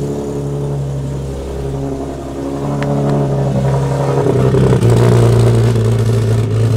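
Nissan 370Z's 3.7-litre V6, newly fitted with a big turbo kit, running shortly after its first start. It idles steadily, then steps up louder with a change in pitch about four seconds in.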